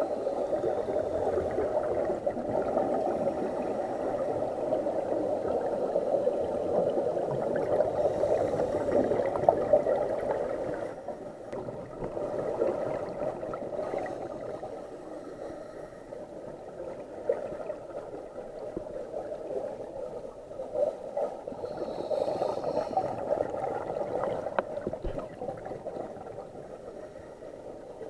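Muffled underwater gurgling and water noise heard through a waterproof camera housing on a scuba dive, with the bubbling of the diver's breathing. It drops in level about eleven seconds in.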